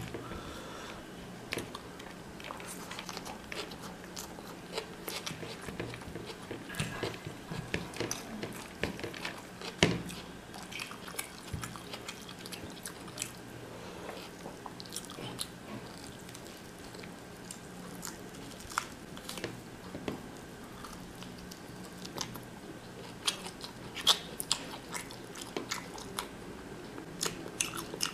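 Close-up eating sounds: a man chewing mouthfuls of mutton biryani eaten by hand, with many short clicks scattered throughout, over a faint steady low hum.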